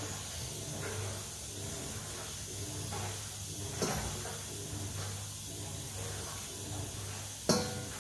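Pressure cooker hissing steadily as it cooks peas, over a low hum. Two sharp knocks: one about four seconds in, a louder one near the end.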